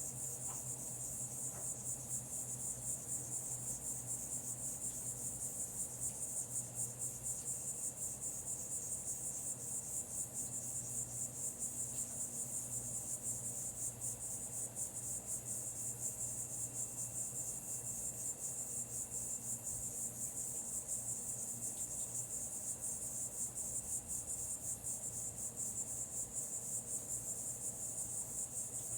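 A steady, high-pitched chorus of insects trilling without a break, with a faint low hum underneath.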